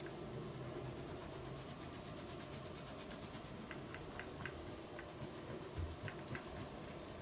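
Pen-style eraser rubbing soft pastel off drawing paper in quick short strokes, a faint rapid scratching, with a few soft ticks later on.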